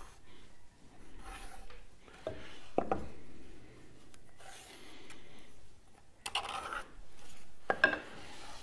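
Pencil drawing lines on plywood along the edge of a wooden strip: a few separate scratching strokes, with a couple of light knocks about two to three seconds in.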